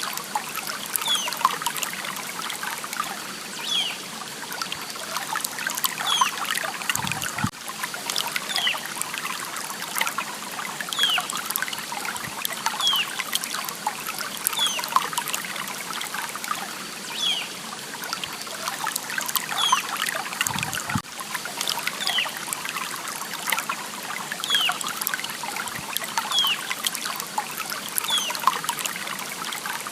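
Water trickling and splashing steadily, like a small stream, with a short high note repeating about every second and a half over it.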